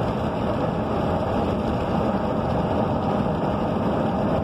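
Steady rumble heard inside a vehicle's cab with the engine running.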